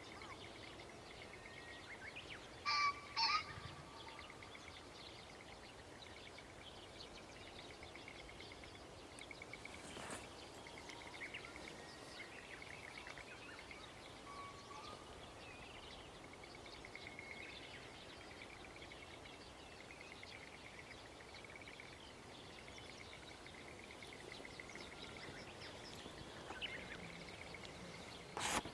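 Wild birds calling, with a steady fast trill running on and two loud, sharp notes about three seconds in, a call like the crow of a green pheasant cock.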